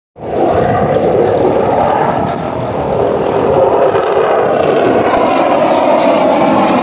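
Fighter jet flying overhead. Its engine noise is a loud, steady rush.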